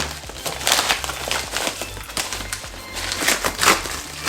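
Plastic mailing bag crinkling in a few short rustles as it is handled and opened, with background music underneath.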